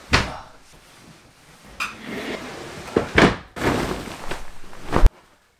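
Bedding being pulled off a bed and thrown: heavy fabric swishing and rustling in several swells, with soft thumps, cutting off suddenly near the end.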